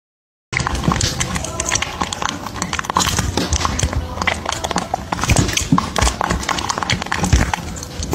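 Close crinkling and clicking of a thin plastic tray of jelly cups being handled, many sharp crackles packed together, starting abruptly about half a second in.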